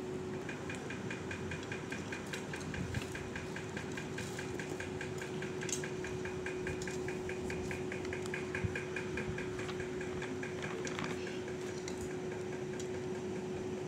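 Steady hum and even whir of a running electric motor, with a fast, high-pitched ticking of about seven ticks a second that stops about ten seconds in.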